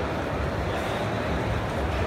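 Steady background noise of a busy exhibition hall: an even hiss with a low rumble, no distinct events.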